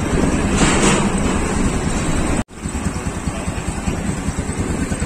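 An engine running steadily with a fast, even low pulsing. There is a brief hiss about half a second in, and the sound drops out for an instant about two and a half seconds in.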